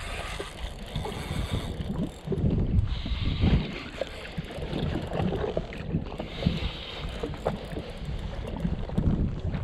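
Wind gusting on the microphone, with water splashing against a jet ski's hull in rushes of hiss and a few light knocks.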